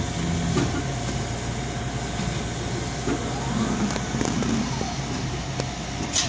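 Steady low machine hum with a faint steady whine above it, and one sharp click about six seconds in.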